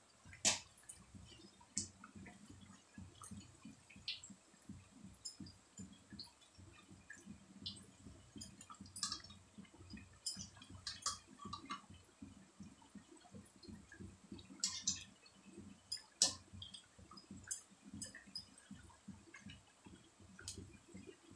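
Semolina kakara pitha deep-frying in hot oil in a kadhai: a faint, steady sizzle with scattered crackles and pops. A few sharper clicks stand out, the loudest about half a second in and about sixteen seconds in, as a wire skimmer moves the cakes in the pan.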